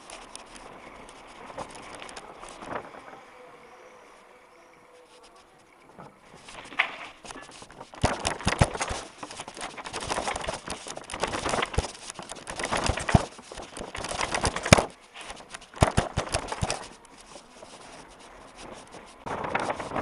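Mountain bike rattling and clattering as it jolts over cobbles and down stone steps, picked up by a head-mounted camera. It is fairly quiet at first, then a dense run of knocks and rattles starts about eight seconds in and eases off near the end.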